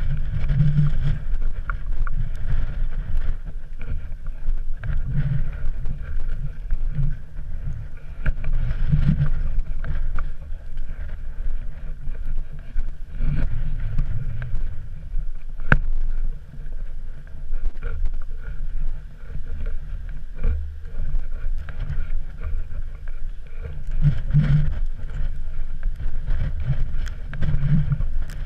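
Wind buffeting an action camera's microphone: a low, gusting rumble that swells and falls, with a few faint taps.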